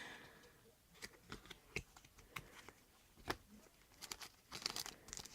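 Trading cards being handled and sorted, with light clicks as cards are slid and flicked, then crinkling of a card packet wrapper in the last second or so.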